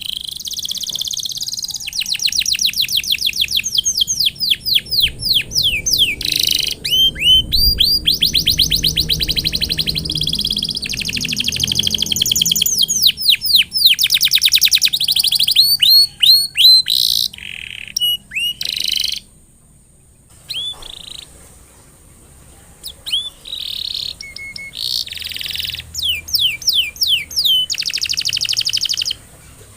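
Domestic canary singing: long, high-pitched song of fast trills and rolls, many quick repeated notes with short breaks between phrases. About two-thirds of the way through it drops off for a few seconds, then resumes.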